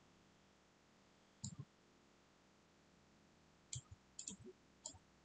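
Faint clicks of a computer mouse and keyboard: a double click about a second and a half in, then a quick run of clicks near the end.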